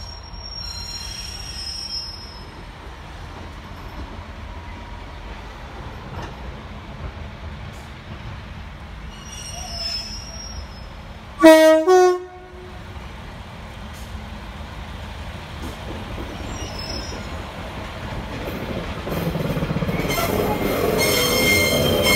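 British Rail Class 142 Pacer railbus sounding its two-tone horn once, about halfway through, as two notes one after the other, over the low rumble of its diesel engine. Near the end the running noise grows louder and squealing from its wheels comes in as the unit draws close.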